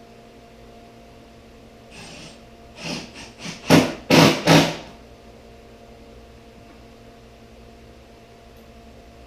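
A quick run of about six knocks and clatters over roughly three seconds, the last three the loudest, from wood pieces being handled or tapped during assembly, over a steady low hum.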